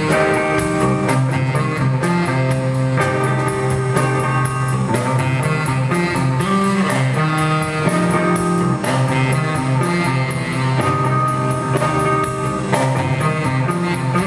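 Live band playing an instrumental blues: hollow-body electric guitar leading over electric bass and a drum kit with steady cymbal beats.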